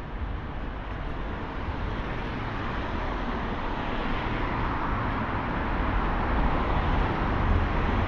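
Road traffic on a city street, engine and tyre noise of passing cars, growing steadily louder as vehicles approach.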